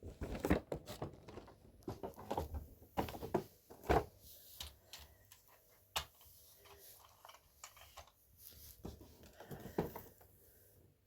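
Irregular clicks, taps and knocks, as of small objects being handled and set down, some louder than others.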